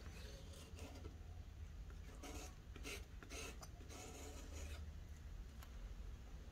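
Metal palette knife scraping wet acrylic paint off the edge of a canvas: a run of short rough scrapes starting about two seconds in, over a steady low hum.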